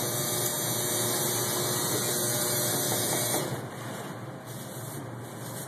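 Steady hiss that drops away sharply about three and a half seconds in, leaving quieter background noise.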